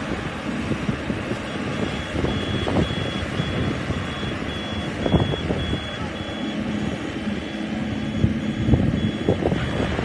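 Rice combine harvester running as it cuts through the field, its engine and machinery giving a steady drone. Over it a warning beeper sounds in short high beeps, two or three a second, starting about two seconds in. Wind buffets the microphone now and then.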